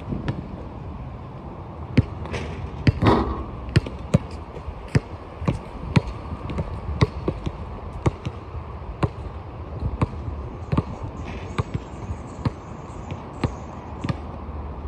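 Basketballs bouncing on an outdoor hard court, a sharp smack every half second to second at an uneven pace as players dribble and shoot. A longer, louder clatter comes about three seconds in.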